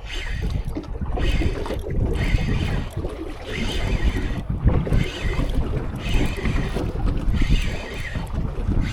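Strong wind buffeting the microphone over water sloshing against a small fishing boat. A rhythmic rushing sound, higher than the rumble, comes and goes about once a second.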